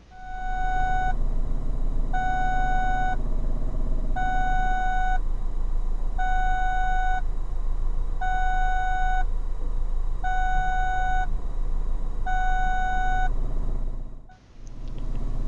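Electronic warning beeper sounding seven times, each beep about a second long with about a second between, all on one steady pitch. A low, steady rumble runs underneath.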